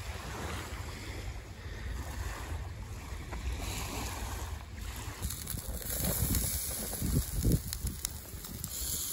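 Wind buffeting the microphone with a low rumble, over small waves lapping on a sandy shore. The gusts are heaviest about seven seconds in.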